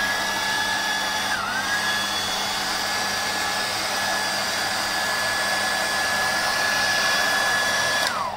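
Handheld hairdryer blowing steadily onto a stainless steel sheet, a rushing air noise over a high motor whine; the whine dips briefly about a second and a half in. It is switched off near the end and the whine falls away as the motor winds down.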